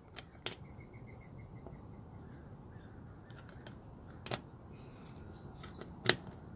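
A screwdriver clicking against the metal of a child's bicycle coaster-brake rear hub as it picks at grease that has hardened like glue, a few sharp clicks spread apart. Faint bird chirps in the background.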